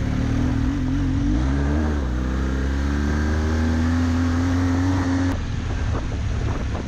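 Adventure motorcycle engine pulling steadily on a gravel road under wind and road noise. Its pitch rises about a second and a half in and holds, then falls away as the throttle is closed about five seconds in. A few knocks follow near the end.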